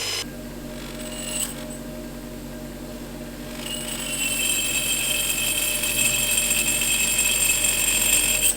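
Electric power tool running steadily with a high whine that grows louder and stronger about four seconds in.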